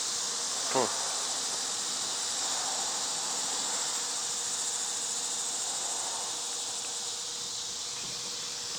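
Steady chorus of insects, an even high-pitched buzz.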